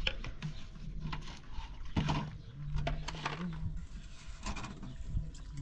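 A large plastic water jug being lifted and handled beside a metal tea tray and kettle, with several knocks and clunks. A low drawn-out tone runs in the background, longest in the middle.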